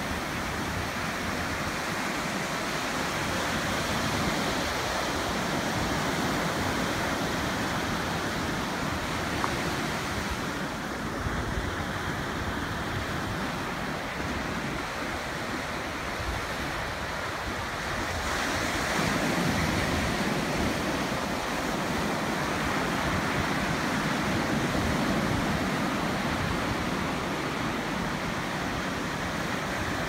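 Ocean surf: small waves breaking and washing up the beach in a steady rush, swelling louder about two-thirds of the way through as a wave comes in.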